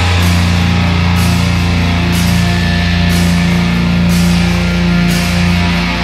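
Heavy metal recording: a low, dense chord held throughout, with a cymbal struck about once a second.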